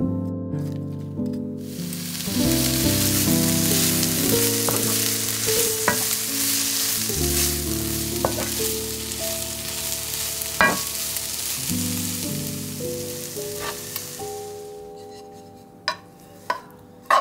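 Strips of bell pepper, carrot and onion sizzling as they fry in a pan, stirred with a wooden spatula that knocks against the pan now and then. The sizzle starts about a second and a half in and fades out near the end, followed by a couple of clinks. Background music plays underneath.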